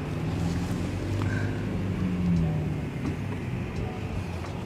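Vehicle engine running steadily, its pitch swelling and easing off about two seconds in.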